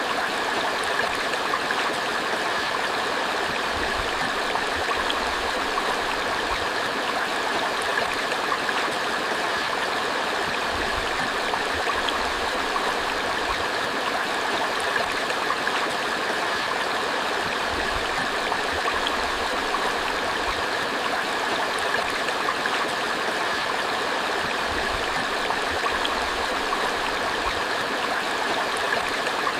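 Creek water running steadily, a constant, smoothed babble with no breaks or changes in level.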